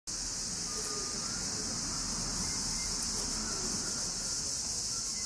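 Steady chorus of insects, heard as an even high-pitched hiss, over faint low background murmur.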